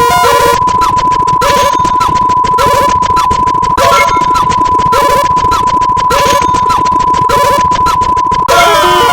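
Dense layered electronic sound effects: a steady beep tone held under rapid clicking and short repeating blips, with a louder burst a little over once a second and a cluster of falling chirps near the end.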